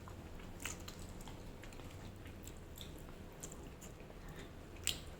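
Faint close-up chewing: small wet mouth clicks and smacks of someone eating, with one sharper click near the end.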